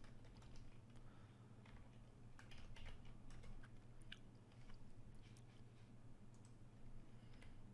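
Faint computer keyboard typing: a quick run of key clicks through the first few seconds, then a few scattered clicks near the end, over a low steady hum.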